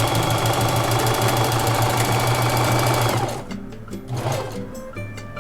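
Singer Heavy Duty 4452 electric sewing machine running at speed, stitching a buttonhole, then stopping about three seconds in. Background music carries on after it.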